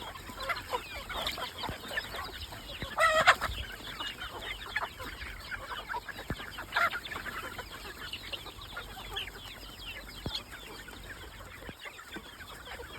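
A flock of native backyard chickens clucking and chirping as they feed, with one louder call about three seconds in.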